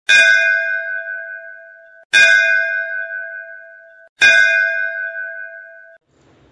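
A bell struck three times, about two seconds apart, each strike ringing out with a few clear tones and fading, then cut off just before the next.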